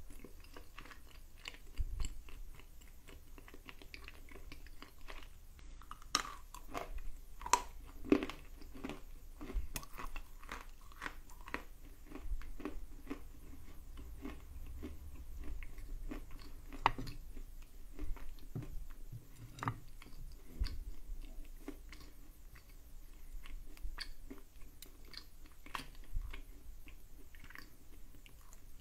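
Close-up chewing and crunching of a piece of edible clay. Irregular small crunches are packed together and loudest about six to ten seconds in, as the clay is worked into a fatty, creamy lump in the mouth.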